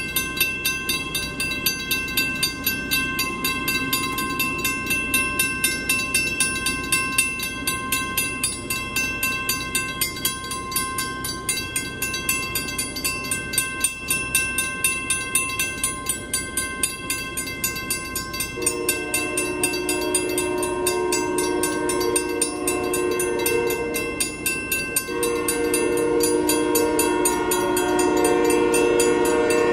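Railroad crossing bell ringing with steady, even strikes as the crossing signals are active. A little past halfway an approaching train's horn sounds a long blast, breaks off briefly, then blows again to the end.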